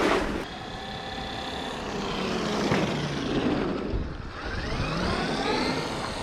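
Traxxas X-Maxx RC truck's electric motor and drivetrain whining as it drives, the pitch falling over the first few seconds, then rising again as it speeds up before dropping near the end.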